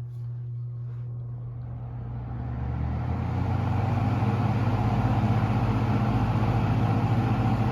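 Penncrest 200 20-inch box fan, made by Lakewood, starting on high speed in reverse (exhaust) with its reversible motor: a steady motor hum, and the rush of air from the metal blades growing louder over the first three or four seconds as they spin up, then running steadily.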